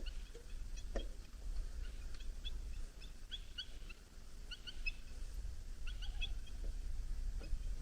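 Bald eagles calling: scattered bursts of short, high chirping notes, over a steady low rumble.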